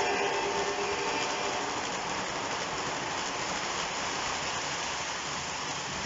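O scale model passenger train rolling past on three-rail track: a steady rushing of metal wheels on the rails. A faint locomotive motor whine fades out about a second in.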